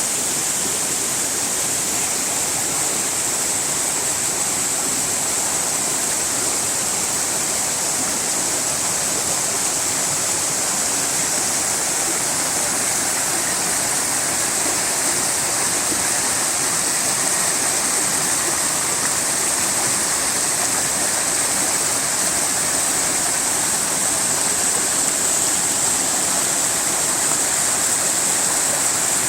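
Rushing water, a steady unbroken rush with a bright hiss and no changes or separate events.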